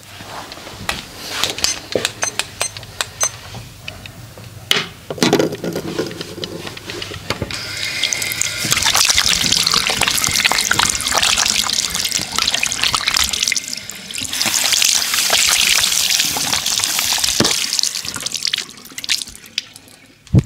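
Water running and splashing, as from a tap, with scattered clicks and taps in the first few seconds.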